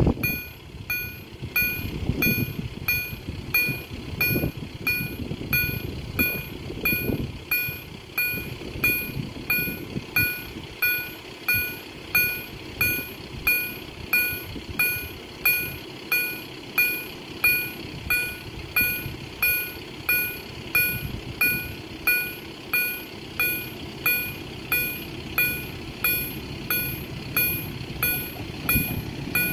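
Railway level-crossing warning bell (EHL-S10 audible signal) striking repeatedly, about one and a half strokes a second, each stroke ringing and fading quickly. It signals that the crossing is activated for an approaching train.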